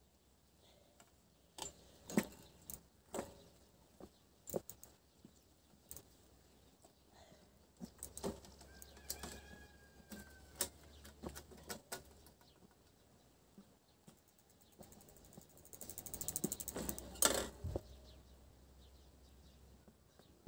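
A bicycle being handled and worked on by hand: scattered clicks, knocks and rattles, then a rapid run of ticking for about three seconds near the end.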